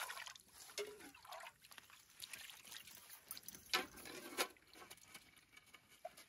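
Water trickling and splashing as a camp bowl is rinsed and tipped out, with two light knocks of dishes around the middle.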